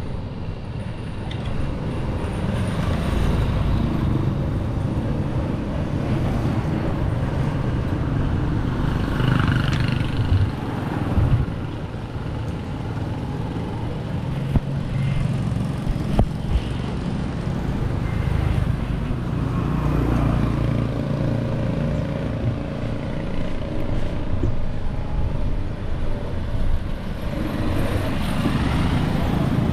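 Steady low rumble of street traffic and road noise. Vehicles pass close about ten seconds in, again about twenty seconds in, and near the end.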